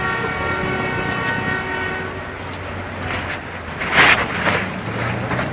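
Horns sounding a steady chord at a ship launch, fading out about two seconds in. Then a loud rushing noise swells with sharp bursts around four seconds in.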